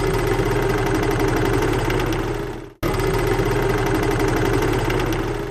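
An engine idling with a steady, even rumble, a short clip of about three seconds played twice in a row, each time fading out.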